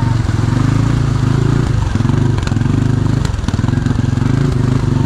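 CF Moto 500 ATV's single-cylinder engine running steadily at low speed, its note dipping and rising a little with the load, with a few sharp knocks.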